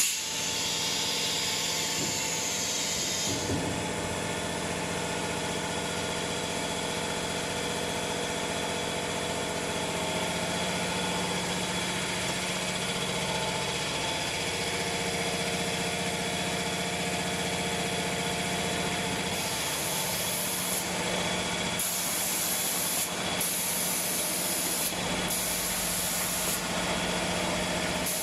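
Automatic spray-painting line for wood/MDF cabinet doors running: a steady machine hum with a low drone. A hiss runs over the first few seconds. From about two-thirds of the way through, short high hisses of spraying repeat every second or two.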